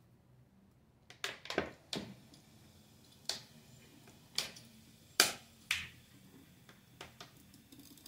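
Irregular sharp clicks and taps, about a dozen, as vinegar is poured from a plastic bottle into a top-loading washing machine's dispenser housing and runs down into the drum. The loudest comes a little after the middle.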